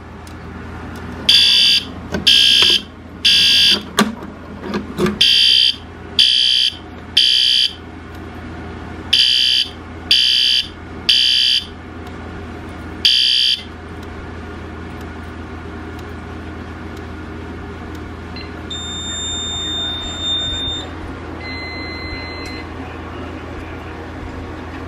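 A fire alarm sounder beeps in the temporal-3 evacuation pattern: three short high beeps, a pause, then three again. This is the alarm set off by the pulled Fire-Lite BG-12LX pull station on the ES-200X panel. The beeping stops about halfway through, leaving a low steady hum.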